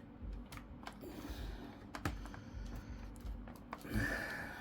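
Faint, scattered clicks and taps of plastic laptop parts and cables being handled as fiddly cables are routed while a hard drive is refitted, with a brief scrape about four seconds in.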